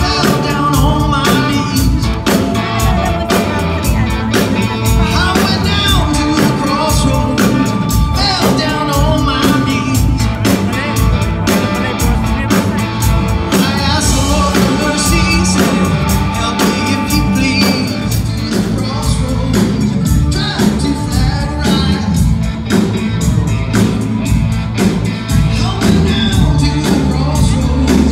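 Live blues band playing, with electric guitar, bass guitar, keyboard and drum kit and a man singing.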